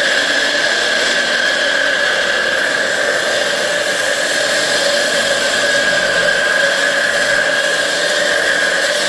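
Electric saw cutting into a wall, running steadily under load with a constant high whine.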